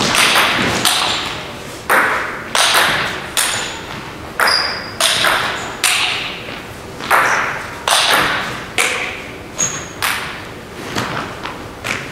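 Table tennis rally: a celluloid-type ball knocked back and forth, a sharp click about every half second as it hits the paddles and the table, echoing in a large sports hall.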